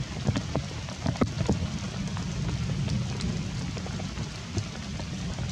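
Steady rain falling, with many separate close drops tapping sharply at irregular moments.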